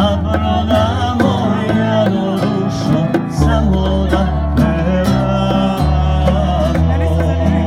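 A live acoustic group playing a folk tune: acoustic guitar, digital keyboard with sustained low notes, and hand-played bongos keeping a steady beat.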